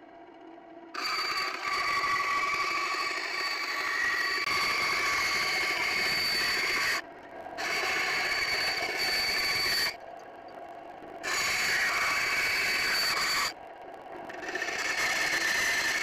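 Band saw cutting thin sheet metal: a loud rasping cut with a steady high whine, broken three times by short lulls where the blade runs out of the cut and the saw idles.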